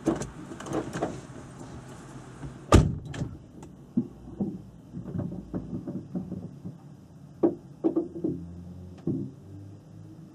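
Scattered knocks and clunks heard from inside a parked car's cabin, the loudest a single heavy thump about three seconds in, over a low steady hum.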